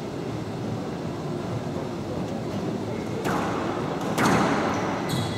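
Low murmur of spectators in a hall, then about three seconds in a squash rally starts: sharp strikes of racket on ball and ball on the walls of the glass court, each ringing briefly, four in quick succession.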